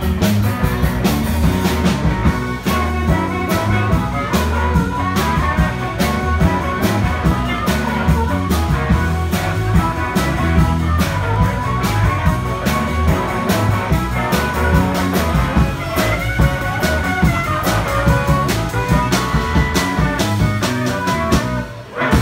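Chicago blues band playing live: electric guitar over a drum kit keeping a steady beat, with a strong bass line.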